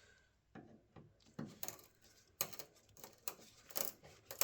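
Light, irregular clicks and taps of small hard parts being handled, about a dozen, a few sharper ones in the second half.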